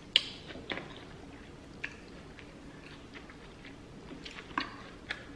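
Close-miked chewing of sauce-soaked seafood-boil meat, with a few short wet clicks and smacks. The loudest click comes about a fifth of a second in.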